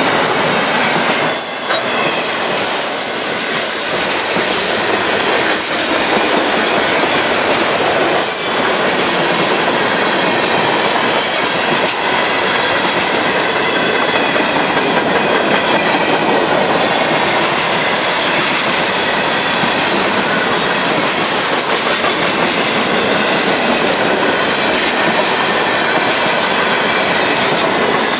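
Cars of a Union Pacific mixed freight train rolling past close by on steel rails: a loud, steady rumble of wheels. There are a few sharp knocks in the first dozen seconds and a thin wheel squeal over the first few seconds.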